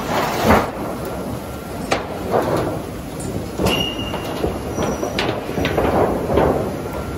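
Trapezoidal roofing roll forming machine running, blue coated steel sheet feeding through its forming rollers: a steady mechanical rumble with irregular metallic clanks and knocks, and a brief high squeal about four seconds in.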